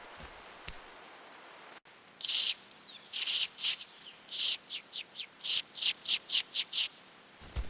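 A bird calling: a run of about a dozen high notes that starts about two seconds in. The first notes are longer and spaced apart, the later ones shorter and quicker.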